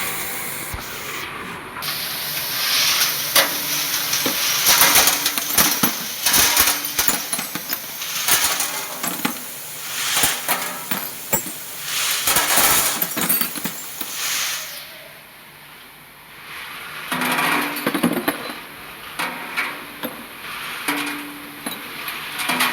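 Small metal nuts, bolts and screws clattering and clinking against each other and against metal in an industrial parts washing machine. The clatter comes in repeated rushes, with a quieter lull about two-thirds of the way through.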